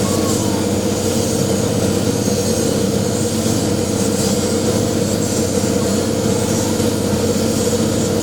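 Coconut milk press machine running on test, a steady mechanical hum with a constant drone and rattle.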